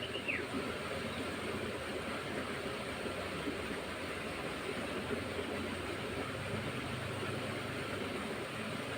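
Water flowing steadily in an irrigation channel, an even rushing noise with no breaks.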